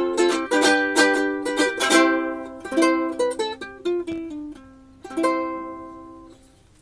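Magic Fluke Flea soprano ukulele (polycarbonate body, wood top and neck) played solo: chords strummed about twice a second at first, then sparser plucked notes, ending on a chord that rings out and fades.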